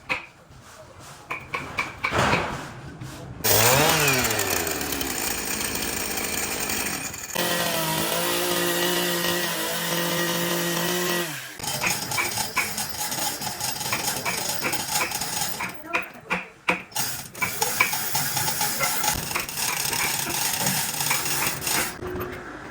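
Electric power tool working wood. Its motor sweeps up and down in pitch, runs steadily for about four seconds and cuts off suddenly, then gives way to a longer stretch of noisy cutting.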